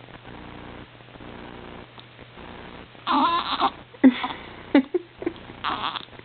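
A newborn baby's soft rhythmic breathing. About three seconds in it gives way to a few loud, squeaky grunts and fussing sounds.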